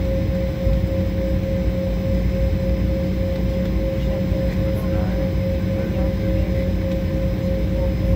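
Jet airliner engines running during taxi, heard from inside the passenger cabin: a steady low rumble with a constant high-pitched hum over it.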